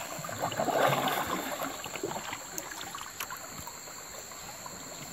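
Kayak paddle blades dipping and splashing in calm creek water, loudest about a second in, then lighter scattered splashes.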